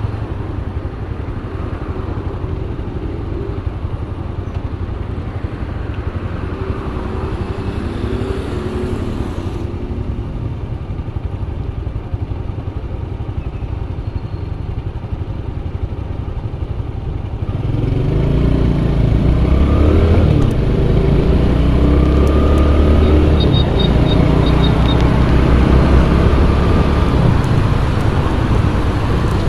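Honda Pop 110i's small single-cylinder four-stroke engine idling at a standstill, then revving up and growing louder as the motorcycle pulls away, a little over halfway through.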